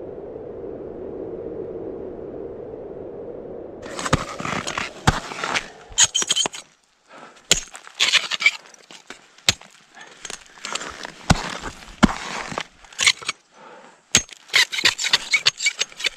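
Ice tools and crampons striking hard water ice: many sharp, irregular impacts with ice chipping and breaking off, starting about four seconds in after a steady low hiss.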